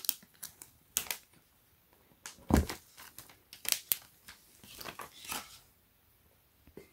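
Plastic shrink wrap being peeled off a phone box: short crinkles and clicks, with a louder dull knock about two and a half seconds in.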